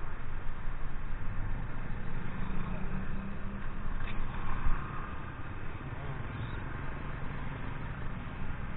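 Motorcycle engine running, a steady low hum under a rough, even haze of noise.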